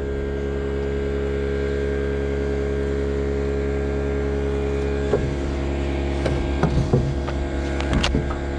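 An engine running steadily at one constant speed. From about five seconds in, several knocks and clicks of hand work on the timber framing sound over it.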